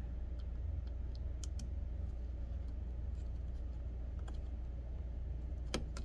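Faint scattered clicks and taps of a small replacement power jack and its plastic housing being handled and worked into a Dell laptop's chassis, with one sharper click near the end. A steady low hum runs underneath.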